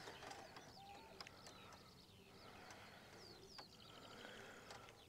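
Near silence, with a few faint bird chirps.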